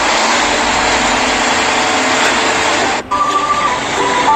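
Excavator at work: a steady, even machine noise for about three seconds that cuts off abruptly, followed by background music with held electronic notes.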